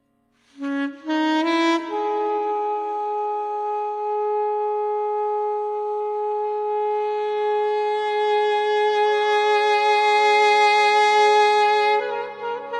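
Solo wind-instrument music. It opens with a few quick rising notes, then holds one long note for about ten seconds and moves up to a new note near the end.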